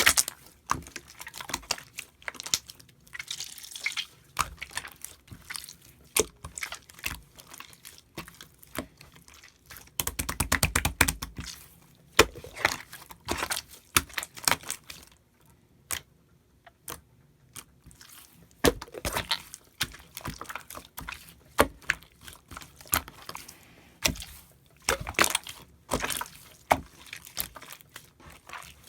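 Slime being squished and stretched by hand, with wet squelches and many small popping clicks as air pockets burst. About ten seconds in comes a dense run of crackling pops lasting a couple of seconds.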